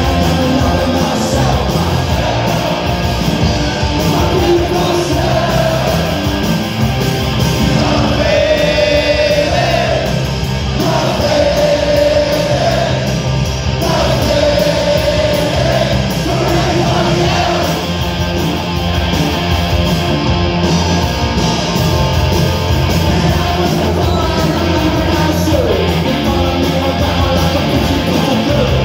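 Punk rock band playing live and loud: distorted electric guitar, bass and drums with a male singer shouting the vocal, heard from among the audience.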